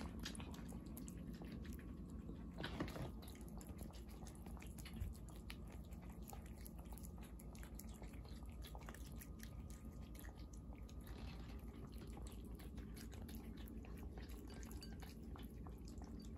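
Cats eating wet cat food from plates and bowls: faint, quick, wet chewing and lapping clicks throughout.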